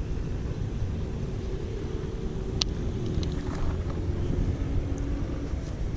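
Steady low rumble of motor traffic, with faint engine tones that drift lower past the middle, and a single sharp click about two and a half seconds in.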